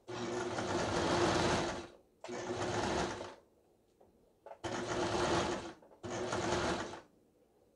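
Brother XL5130 household sewing machine stitching a zigzag test seam on fabric in four short runs of one to two seconds each, stopping between runs while the stitch width is changed. It runs fairly loud, its hollow plastic casing resonating, which the repairman gives as the reason this machine is noisy.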